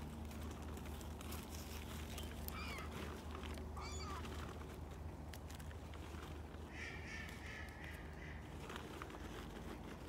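Gulls calling: a few short, sliding cries about three seconds in, then a longer call about seven seconds in. A low steady hum runs underneath.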